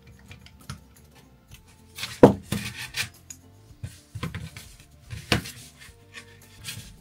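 Hand handling of small model linkage arms and a screwdriver on a cardboard-covered workbench: irregular clicks and clattering knocks, loudest about two seconds in and again a little after five seconds.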